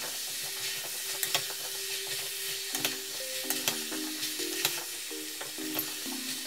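Sliced leeks and potato chunks sizzling as they fry in butter in a stainless-steel pot, stirred with a wooden spoon that clicks against the pot now and then.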